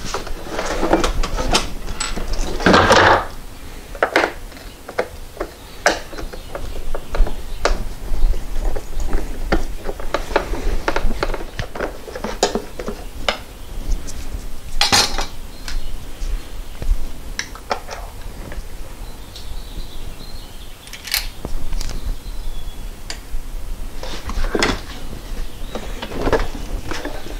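Irregular clicks, knocks and metallic clinks of a screwdriver and hands working on the plastic shroud of a small Husky portable air compressor as it is taken apart.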